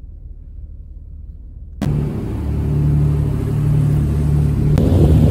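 A low rumble inside a car's cabin. About two seconds in it cuts to a louder, steady drone of the car ferry's engines, with a low hum under a broad hiss.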